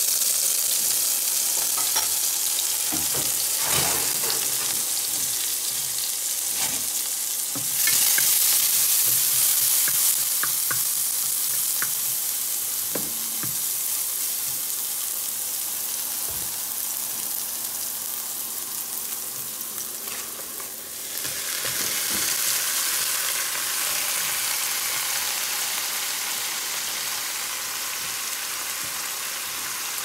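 Chopped garlic and green chili sizzling in hot oil in a wok: a steady frying hiss with occasional short scrapes and clicks of stirring. The sizzle swells suddenly about eight seconds in and again about twenty-one seconds in.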